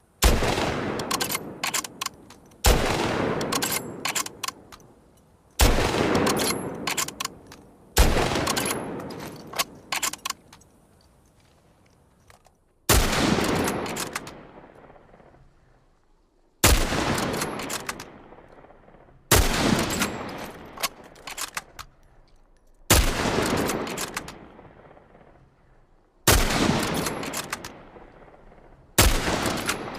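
Remington Model 700 BDL bolt-action rifle firing single shots, about ten in all, spaced two to four seconds apart, each shot followed by a long echoing tail that dies away.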